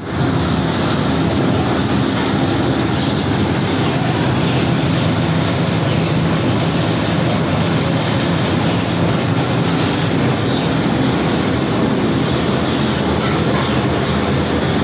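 Heavy processing machinery running steadily: a loud, unbroken mechanical din with a low drone underneath.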